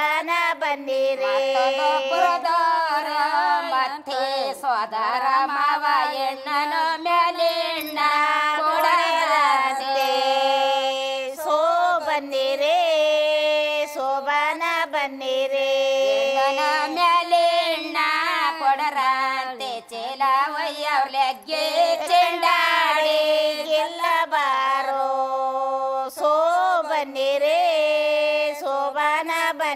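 A woman singing a slow melody alone, her voice sliding and turning between notes in long phrases, in an Indian ceremonial-song style.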